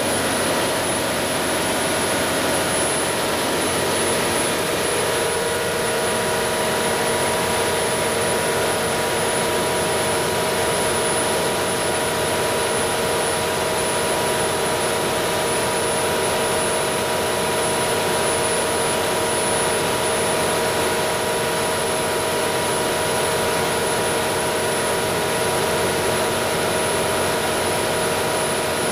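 300 kW Generac standby diesel generator set running steadily at rated speed, a loud even engine drone with several steady tones and a thin high whine over it.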